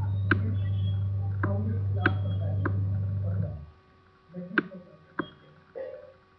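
Computer mouse clicking about seven times, single sharp clicks spaced roughly half a second to a second apart. A low steady hum underneath cuts out about three and a half seconds in.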